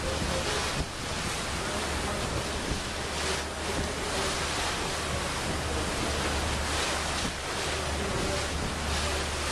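Wind buffeting the microphone and water rushing past the hull of a moving ferry, with a steady low hum underneath.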